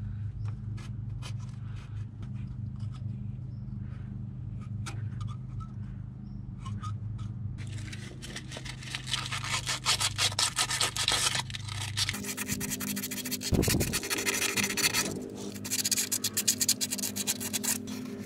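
Hand-scraping old gasket residue off the metal gasket surface of the Land Cruiser's water pump housing. The first strokes are light and scattered, and from about eight seconds in come fast, dense scraping strokes, with a low steady hum underneath.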